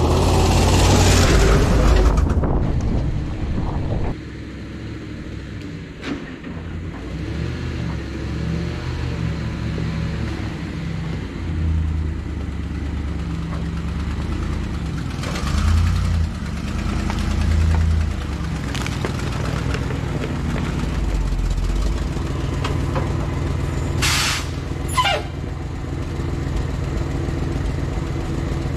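Ford medium-duty crane truck with a carbureted big-block V8 driving by over gravel, engine and tyres on stone loudest for the first couple of seconds, then the engine running on steadily with a few short rises in speed. Two short hisses about a second apart near the end.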